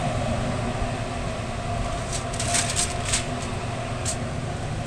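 Steady hum of a food truck's kitchen machinery. Over it come a few short crinkles as aluminium foil is pulled from its box and torn along the cutter edge, about two to three seconds in and again near four seconds.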